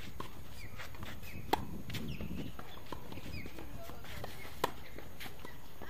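Tennis ball struck by a racket during a rally on a hard court: two sharp hits about three seconds apart, with fainter knocks of the ball and footsteps in between, over steady outdoor background noise.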